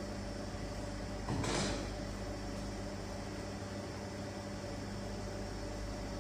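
Steady mechanical hum and hiss of a vacuum pump evacuating a gauge test manifold, the pressure falling as it runs. A short burst of noise about a second and a half in.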